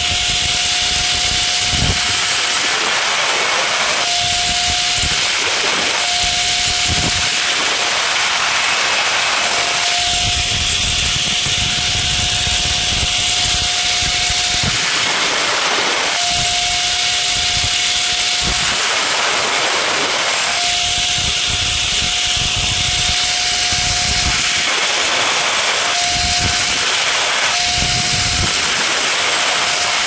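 Angle grinder running continuously and cutting notches bit by bit into thin sheet metal cut from a can. Its steady whine breaks off again and again as the disc is pressed into the metal.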